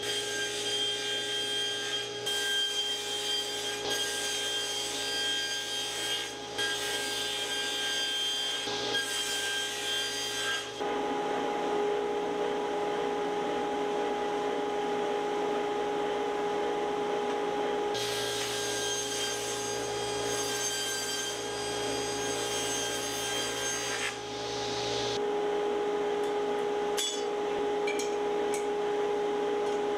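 Table saw running and cutting boards to length, a steady machine whine with the noise of the blade in the wood, for about the first ten seconds. A steady hum carries on after that, with a few light metal clicks near the end as the blade is being changed.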